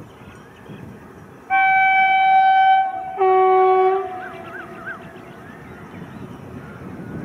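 Indian Railways WAG-7 electric locomotive sounding its horn: one long steady blast of about a second and a half, then a shorter second blast with a deeper note sounding alongside it.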